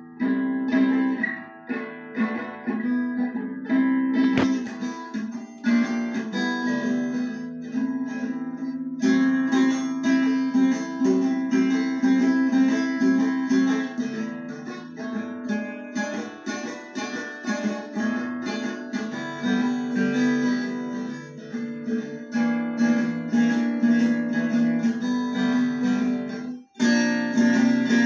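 Six-string acoustic guitar picked and strummed, a home recording played back from a phone's voice-recorder app. A steady low note rings under the melody throughout, with a brief break near the end.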